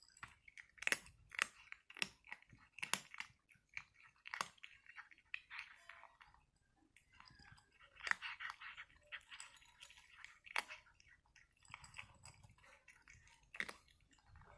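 Cat chewing its food noisily, with loud, irregular sharp crunches and bites.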